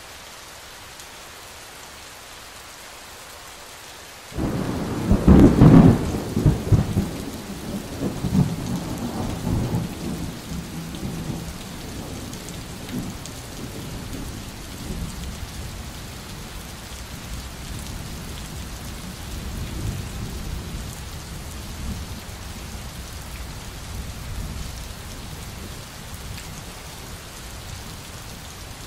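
Steady rain, with a sudden clap of thunder a little over four seconds in that rumbles on and slowly dies away over the next several seconds while the rain keeps falling.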